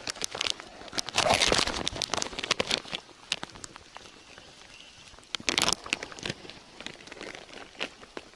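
Close crinkling and rustling handling noise with many scattered sharp taps, loudest in two bursts, one about a second in and one about five and a half seconds in. Raindrops striking the camera housing are the likely source of the taps.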